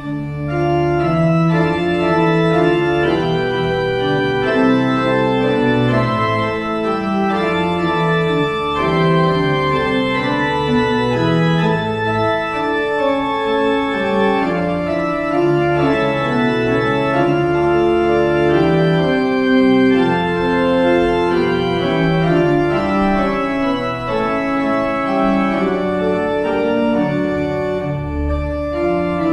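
Church pipe organ playing the postlude: full sustained chords with a deep pedal bass, starting abruptly at the beginning and continuing steadily.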